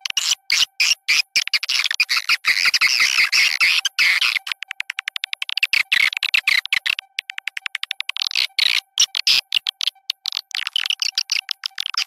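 Recorded swiftlet calls played as a lure sound to draw swiftlets into a nesting house: fast trains of sharp chirps, thickening into dense twittering bursts, over a faint steady tone.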